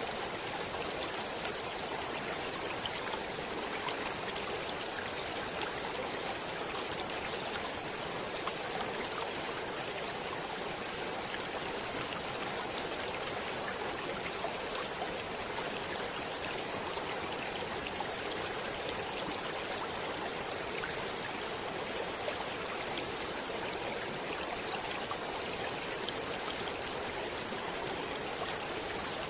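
Stream water flowing steadily, a continuous even rush with fine little splashes through it.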